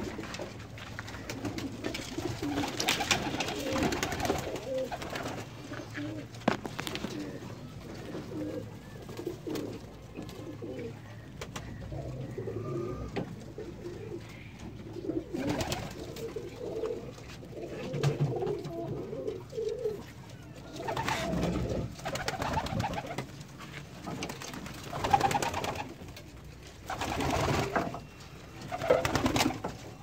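A loft full of domestic pigeons cooing continuously in a small enclosed room, with several louder short noisy bursts, mostly in the second half.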